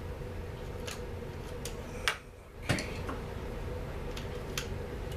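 Scattered light clicks and ticks of small chainsaw parts and tools being handled, over a steady background hum. Two louder clicks come about two seconds in, and the background cuts out briefly between them.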